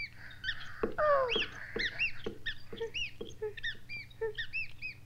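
Cartoon mice squeaking: a run of short, high squeaks that rise and fall, several a second. A high voice exclaims "Oh" about a second in.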